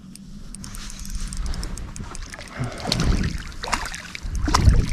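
A hooked bream splashing and thrashing at the water's surface beside a small boat as it is reeled in. The splashing builds from about three seconds in and is loudest near the end.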